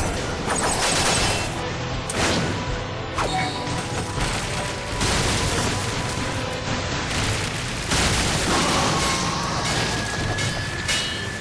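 Anime battle sound effects: a dense mix of booms and crashing impacts, with several heavy hits along the way, layered over soundtrack music.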